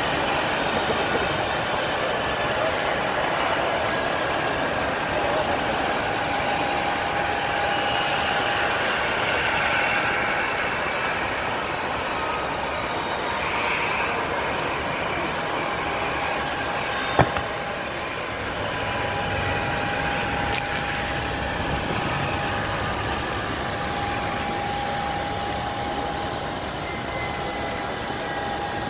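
Boeing 737-800's CFM56 turbofan engines at idle as the jet taxis in: a steady whine over an even jet rush, with one sharp click about 17 seconds in.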